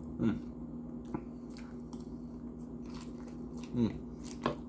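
Close-up chewing of Doritos nachos loaded with toppings: short crisp crunches and wet mouth sounds over a steady low hum. Two brief low voice sounds drop in pitch, one just after the start and one near the end.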